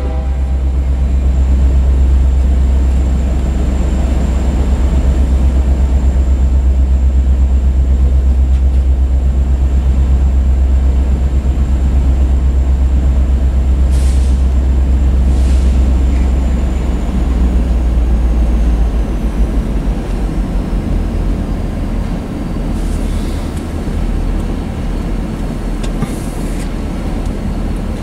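Freight cars (bulkhead flatcars, then boxcars) rolling past: a steady low rumble of steel wheels on rail that eases a little after the middle. A thin high squeal runs through it and drops in pitch about two-thirds in, and two sharp clicks come around the middle.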